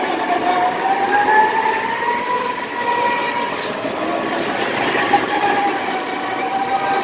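Go-karts running on an indoor track: a steady rushing noise with several whining tones that glide slowly up and down in pitch.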